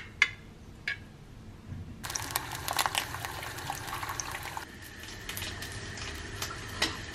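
Liquid pouring, with several light clicks and taps of kitchen utensils.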